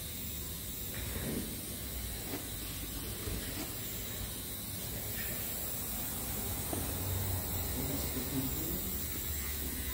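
Steady room noise in a shop: an even hiss with a low hum underneath, with no distinct events standing out.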